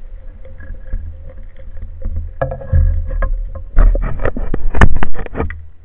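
Underwater sound picked up by a spearfishing camera: a steady low rumble of water moving against the housing with a faint steady hum, then a quick run of sharp knocks and clicks from about four to five and a half seconds in, as the speared fish pulls on the speargun line.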